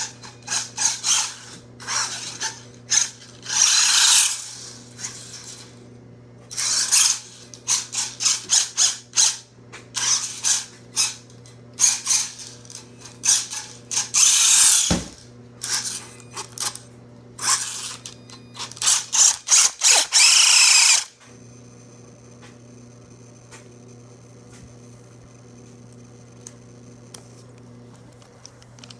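RC car's electric motor and gears whirring in many short, stuttering bursts, then stopping about three-quarters of the way through, leaving a low steady hum. One knock midway.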